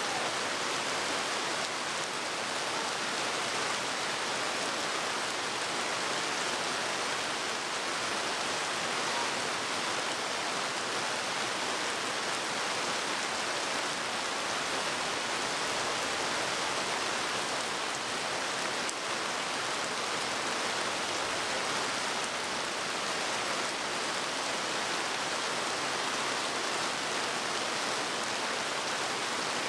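Heavy rain falling steadily on a wet paved parade ground, an even, unbroken hiss.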